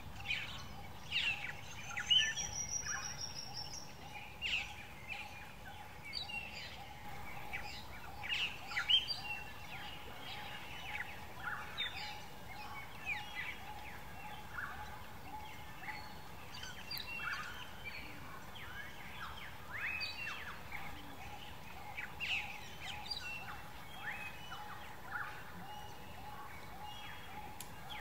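Wild birds calling in a forest, many short chirps and whistles throughout, with a brief high trill about three seconds in. A faint steady drone runs underneath.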